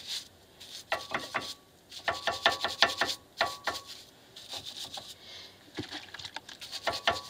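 Hand wire brush scrubbing a steel brake caliper bracket in quick strokes: runs of sharp scratching clicks, some with a short metallic ring, in bursts with brief pauses between. It is cleaning dirt off where the brake pad clips mount.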